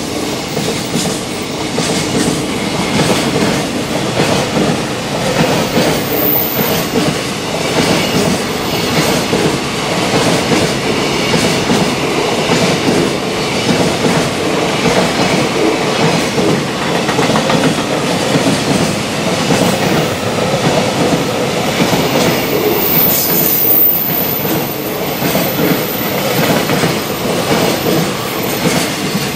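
A long freight train of container wagons passing at speed: a steady, loud rumble of wheels on rail with the rhythmic clickety-clack of the wheels running over the rail joints.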